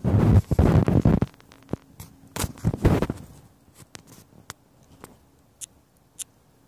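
Close rustling and scraping of a gloved hand and the phone brushing against rough conifer bark, in two loud bouts in the first three seconds, followed by a few short sharp ticks.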